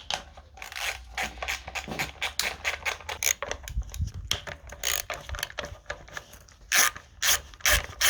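Irregular clicks and clinks of hand tools on an engine, with a ratchet clicking as bolts are worked.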